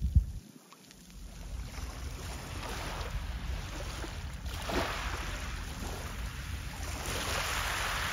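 Wind buffeting the microphone with a low rumble, over small harbour waves washing against the shore. The wash swells twice, about halfway through and near the end.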